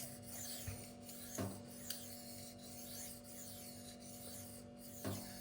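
K110 steel knife blade being stroked back and forth on a silicon carbide sharpening stone, a faint repeated rasping scrape. There are two light knocks, about a second and a half in and near the end.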